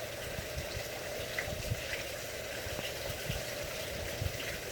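Gusty wind from a hurricane's outer bands rushing steadily and buffeting the phone's microphone with irregular low rumbles.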